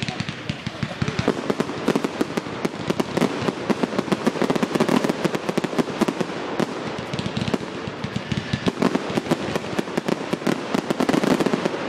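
Aerial fireworks going off in a rapid, dense barrage of bangs and crackles, thickest in two flurries, one in the first few seconds and one near the end.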